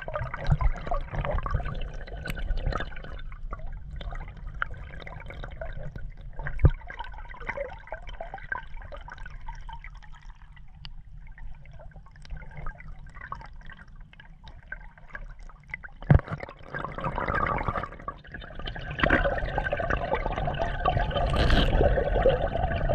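Water sloshing and gurgling around a camera held just under the surface from a moving canoe, with a couple of sharp knocks. It grows louder in the last third.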